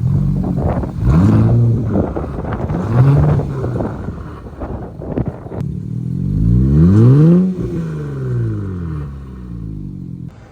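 Infiniti VR30 twin-turbo V6 revving through a Tomei single-exit exhaust: two short throttle blips, then a longer rev that climbs and falls back down.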